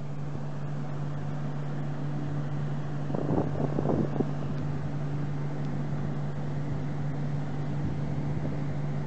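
Steady low hum with a constant tone from the Adwen 8 MW prototype wind turbine running, heard at the foot of its tower, with a brief burst of rough noise about three seconds in.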